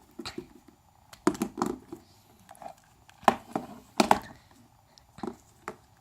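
Handling noise: a string of irregular knocks and clicks, the loudest about three and four seconds in.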